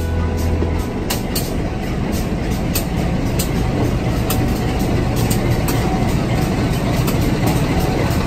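CC201 diesel-electric locomotive passing close by, its diesel engine running loudly under a dense, steady rumble, with sharp clicks about twice a second.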